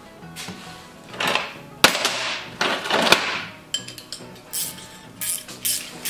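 Steel bolts and a piece of flat steel stock being handled: a sharp metal clink about two seconds in, then quick light clinks and rattles of the bolts in the hand through the second half. Background music plays faintly underneath.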